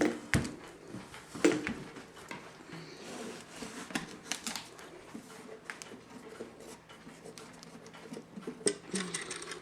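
Scattered knocks, clicks and rattles of a wooden wall clock case being handled and turned over on a workbench, with its movement newly screwed in.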